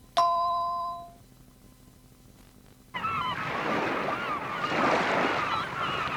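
A single electronic cueing chime rings and fades over about a second. About three seconds in, a sound-effects bed of ocean surf starts, with seabirds such as gulls crying over it.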